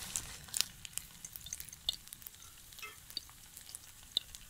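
A battered cauliflower pakora deep-frying in hot oil in a small pan: a sizzling hiss dotted with short crackles and pops, a little louder in the first second as the piece goes into the oil, then settling.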